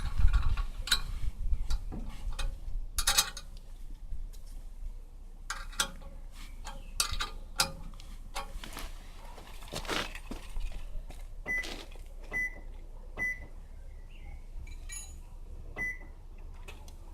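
Irregular knocks and clatters of something being handled, then a few short high-pitched beeps, three of them about a second apart and one more a little later.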